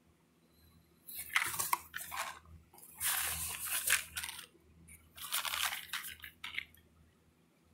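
Packaging being torn open by hand while unboxing an ammunition shipment: three rough tearing, crunching bursts, each a second or more long.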